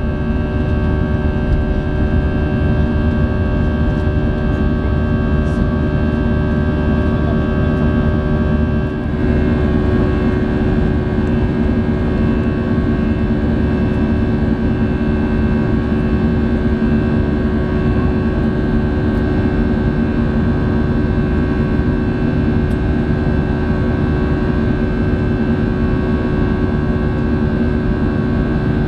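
Airbus A320 jet engines heard from inside the cabin during the climb after takeoff: a steady loud drone with whining fan tones over a deep rumble. The sound shifts slightly about nine seconds in, the deep rumble easing.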